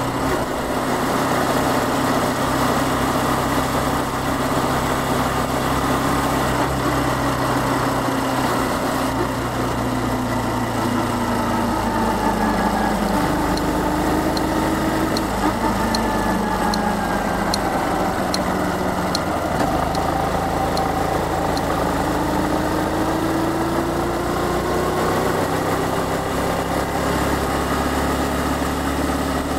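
Honda Cross Cub 110's small single-cylinder four-stroke engine running on the move, heard from the rider's seat. The revs drop about 13 seconds in and climb again past 20 seconds. In the middle, a light regular ticking comes a little more than once a second for several seconds.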